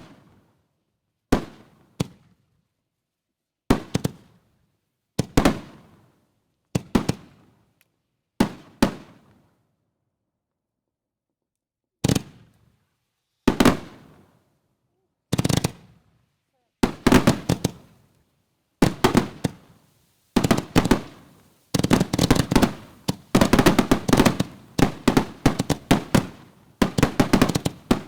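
Canister firework shells going off one after another: single sharp bangs, each trailing off in an echo, about every second and a half, then past the halfway point a dense run of overlapping bangs and crackle.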